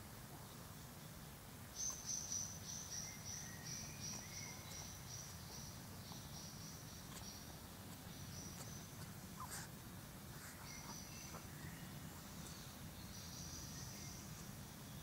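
Outdoor wildlife ambience. A high-pitched chirp is repeated about three times a second in runs of several seconds; the first run starts about two seconds in and is the loudest. A few faint, lower whistled bird notes sound underneath.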